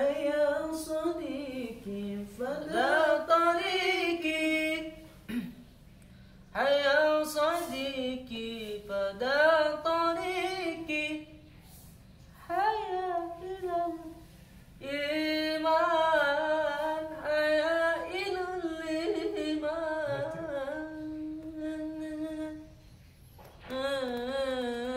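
A man singing an Islamic sholawat unaccompanied, in a high voice with ornamented, wavering held notes. He sings in about six phrases broken by short pauses.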